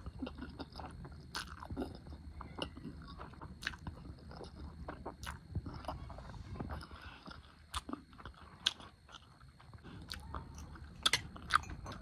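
Close-up chewing of a mouthful of spicy ramen noodles, with wet mouth clicks and smacks at irregular intervals. A few louder sharp clicks come late on.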